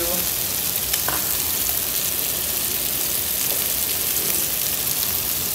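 Meat sizzling on a flat Korean barbecue grill plate: a steady frying hiss, with a couple of light clicks about a second in.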